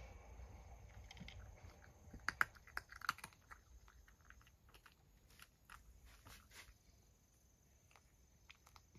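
Cat eating from a wooden tray: a run of small crisp clicks of chewing and licking, loudest two to three seconds in and thinning out later on.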